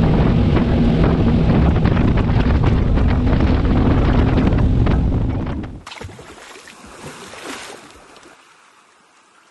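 Several Suzuki 300 V6 four-stroke outboard engines running at speed, their steady low drone mixed with heavy wind on the microphone and the rush of the wake. About six seconds in the sound cuts off abruptly, leaving only a faint sound that fades away.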